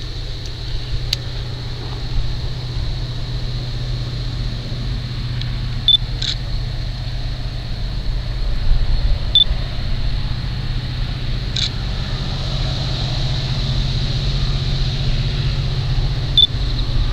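Diesel freight locomotive approaching from a distance: a steady low engine rumble that grows slightly louder. A few brief high-pitched chirps sound over it.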